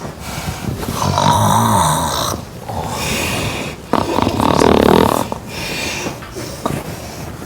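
A woman snoring loudly: a series of long, rasping snores, the loudest about a second in and again about four seconds in.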